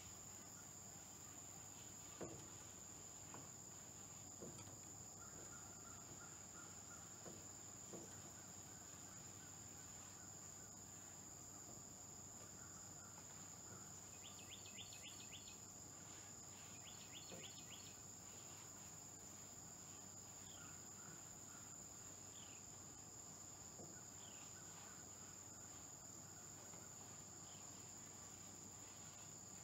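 Quiet outdoor ambience dominated by a steady, high-pitched insect chorus. A few faint knocks come in the first several seconds, and a few short chirps come near the middle and later.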